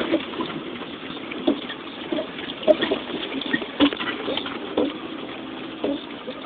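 Off-road vehicle bumping down a steep leaf-covered forest track: an irregular clatter of knocks and rattles over a steady rushing noise.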